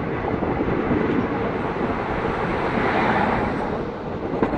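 Loud, steady rushing and rumbling of passenger trains running, heard from the open door of one while another passes close by on the adjacent track, with wind buffeting the microphone. The noise swells about three seconds in, then eases.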